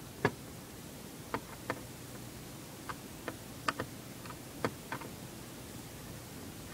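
About ten sharp, irregular clicks and taps of small hard parts, the loudest near the start: small laptop screws being handled and set down on a hard work surface.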